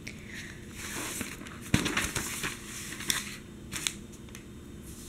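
A newspaper page being turned. The newsprint rustles, then gives a sharp, loud crackle about 1.7 s in, followed by more crinkling and two short crisp crackles near 3 and 4 seconds.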